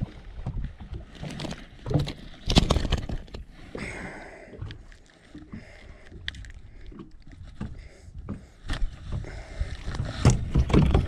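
Water slapping and irregular knocks against a small fishing boat's hull, over a low, unsteady rumble.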